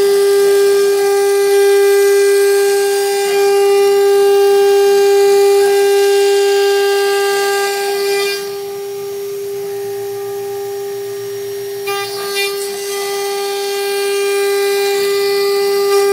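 CNC router spindle running at a steady high whine while its end mill cuts clear acrylic sheet, with a hissing cutting noise on top. About halfway through, the hiss drops away for a few seconds, leaving the spindle whine on its own, then returns.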